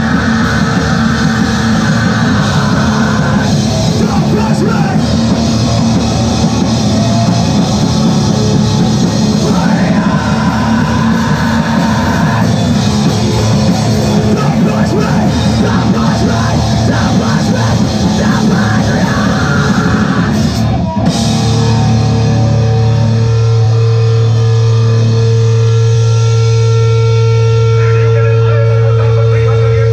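Live heavy rock band playing loud in a small room: distorted guitars, bass and drums, with no vocals. About two-thirds of the way through, the full band stops and steady held notes ring on.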